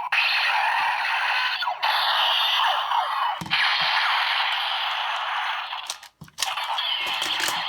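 Electronic sound effects from a DX Break Gunner toy, played through its small tinny speaker: a dense, noisy effect with sweeping tones. It is broken by a few sharp clicks a little past the middle and again about six seconds in.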